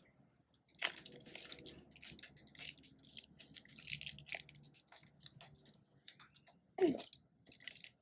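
Plastic packaging of a Mini Brands toy capsule crinkling and tearing as it is opened by hand, heard as an irregular run of short crackles and rustles. A brief vocal sound comes about seven seconds in.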